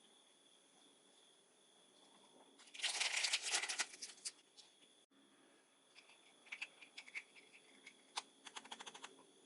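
Blind box packaging being handled: a dense burst of crinkling and tearing about three seconds in, then scattered light clicks and rustles near the end.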